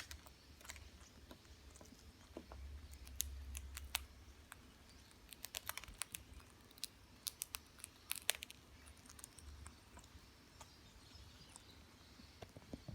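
Irregular sharp crunches and cracks of potato chips being bitten and broken, coming in small clusters, over a low handling rumble.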